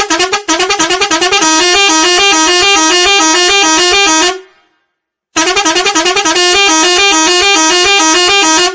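Telolet multi-tone musical horn on a truck playing its fast warbling tune: quick repeated toots run together into a rapid alternation between pitches, stop abruptly about four seconds in, then start again a second later and play until near the end.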